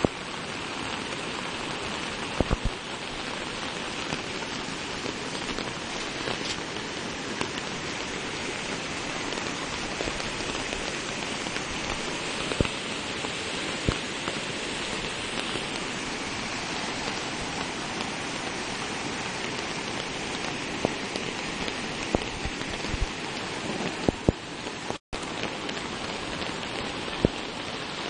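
Steady rain falling, with scattered sharp taps of drops. The sound cuts out for an instant near the end.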